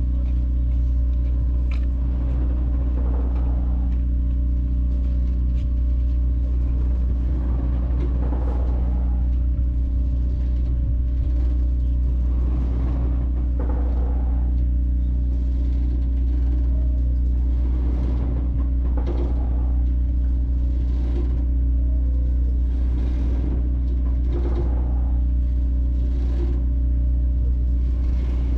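A large engine idling with a deep, steady hum that does not change.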